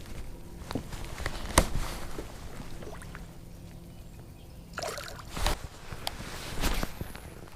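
Knocks and bumps on a fishing boat, the sharpest about one and a half seconds in and two more near the end, over a faint steady hum.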